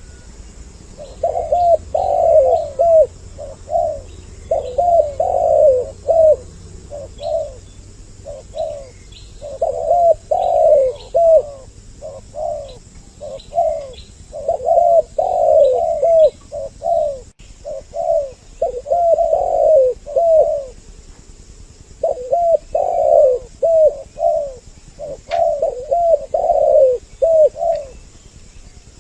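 Spotted doves cooing: bursts of low, rolling coo phrases, repeated every second or two with short pauses between, the calls of more than one bird overlapping.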